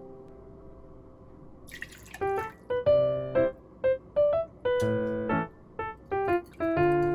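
Background music: after about two seconds of faint low noise, a bouncy keyboard melody of short, detached notes comes in.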